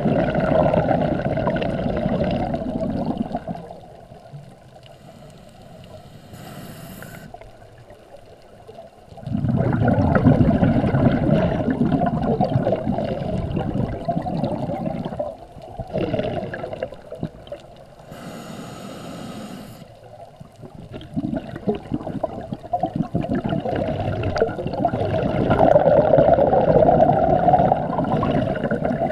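Scuba diver's breathing heard underwater: long bursts of exhaled bubbles gurgling three times, with quiet gaps between them, each gap holding a short hiss of the regulator on the inhale.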